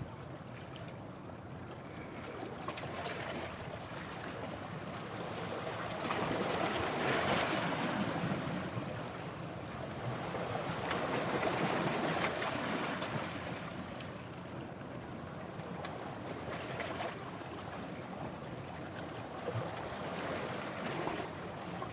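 Sea surf washing in on the shore: a steady wash that swells louder twice, about a third of the way in and again around the middle, then settles back.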